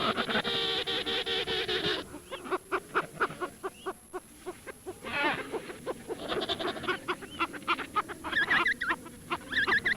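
Domestic fowl calling: a flock giving rapid, repeated short calls, with higher rising-and-falling calls near the end.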